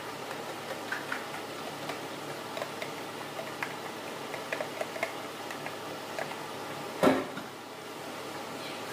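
Chili paste for balado frying in a pan over a gas flame, a steady sizzle with small scattered pops and ticks as it is stirred. About seven seconds in there is one sharp clack as the plastic tongs are set down on the pan.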